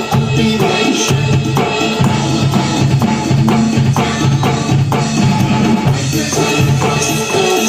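Rock drumming on an electronic drum kit, kick, snare and cymbals played in a steady beat over a rock backing track.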